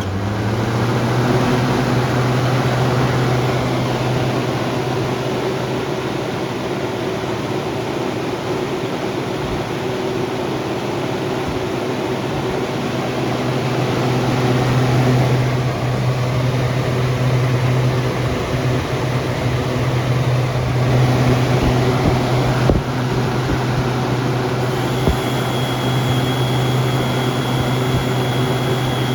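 Lakewood model 227 box fan running on high speed: a loud, steady motor hum under a rush of moving air. The hum rises in pitch in the first second as the motor comes up to speed.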